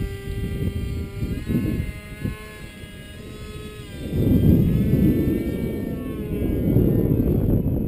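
Motor of a radio-controlled Su-37 model jet in flight: a whine whose pitch rises and falls with the throttle. Heavy wind buffeting on the microphone runs under it and is loudest about four seconds in.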